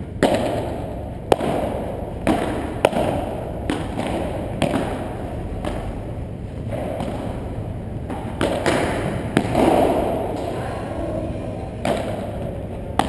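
Padel ball being struck back and forth in a rally: sharp knocks from the paddles and bounces, roughly one a second, ringing in a large indoor hall.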